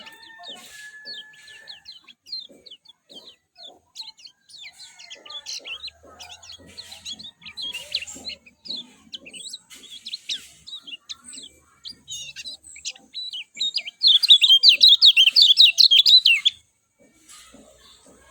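Kecial kuning, a small white-eye songbird, chirping in quick, varied short notes. About fourteen seconds in, it breaks into a loud, fast run of rapid chirps lasting a couple of seconds.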